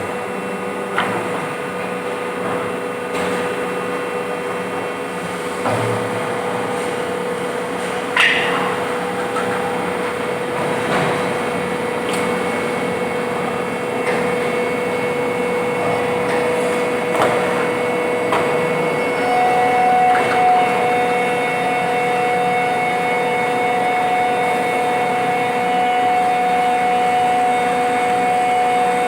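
Plastic injection moulding machines running on a factory floor: a steady mechanical hum with a constant tone, broken by scattered short knocks, and a second, higher tone that comes in about two-thirds of the way through and holds.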